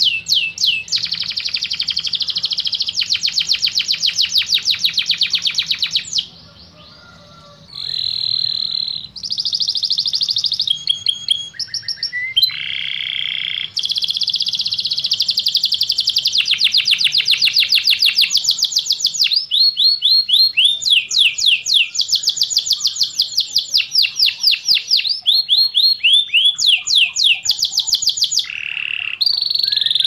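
Domestic canary singing: fast rolling trills and quick runs of repeated high notes, pausing for about two seconds about six seconds in before going on.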